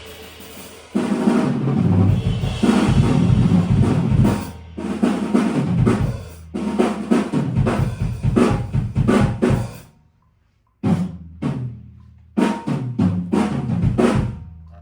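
Loud band music driven by a drum kit, with kick drum and snare hits. It breaks off abruptly about ten seconds in, starts again a moment later, and dies away near the end.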